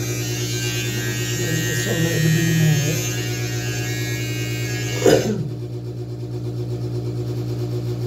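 Steady low electrical hum. A brighter hiss lies over it for about the first five seconds and stops just after a sharp click.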